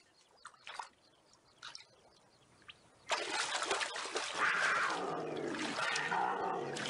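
A few faint splashes and drips in shallow water, then about three seconds in a sudden loud rush of splashing as a cougar charges through the water, followed by the cougar snarling and growling in a fight with a young bear.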